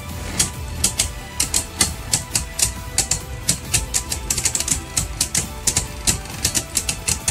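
Two Beyblade Burst spinning tops clash in a plastic stadium, making rapid, irregular sharp clicks several times a second as they strike each other. A steady low hum and music run underneath.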